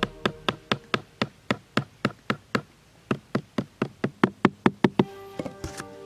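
Small hammer tapping repeatedly on a part inside a cardboard box, about four quick knocks a second with a short pause near the middle, stopping about five seconds in.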